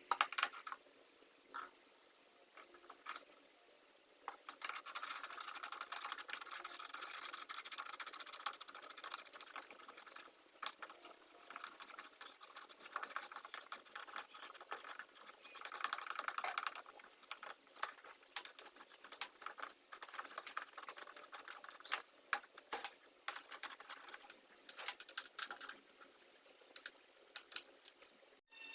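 Faint, irregular small clicks and light rubbing, like parts being handled and moved by hand, over a faint steady high-pitched whine.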